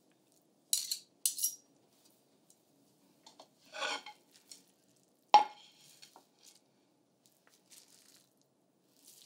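A fork and metal tongs scraping through roasted spaghetti squash flesh and clinking against a plate. There are a few short scrapes and one sharp clink a little past halfway, which is the loudest sound.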